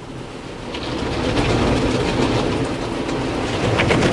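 Spinning side brush of a Ryko Softgloss XS soft-touch car wash slapping its strips against the car's windows and body, heard from inside the car over the spray of water. It builds over the first second or so as the brush arrives, then keeps up a fast, uneven patter.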